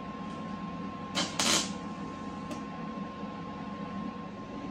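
Two brief MIG tack welds about a second in, short crackling bursts, the second slightly longer and the loudest, tacking a replacement sheet-metal quarter panel in place. A steady shop hum with a constant tone runs underneath.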